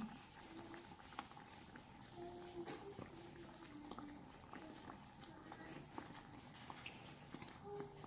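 Faint sizzling and crackling of the chermoula sauce cooking in a tagine, with many small ticks, as shelled mussels are dropped into it by hand.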